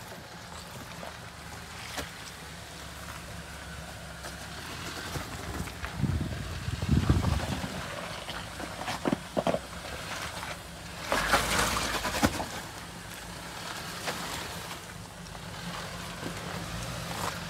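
Off-road 4x4 engine running at low revs, with a brief rev about six seconds in, a few sharp knocks around nine seconds, and a loud rushing burst about eleven seconds in.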